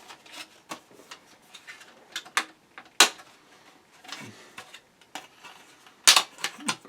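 Irregular clicks and knocks of plastic and metal computer-case parts being handled and pushed into place. Sharp taps are scattered throughout, with louder knocks about three seconds in and again about six seconds in.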